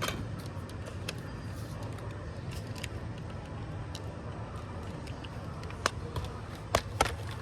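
Scattered sharp plastic clicks and knocks from an upright vacuum cleaner being handled and its switch tried. The cleaner has no power and does not start, so only a steady low hum of shop background noise lies under the clicks, the loudest clicks coming near the end.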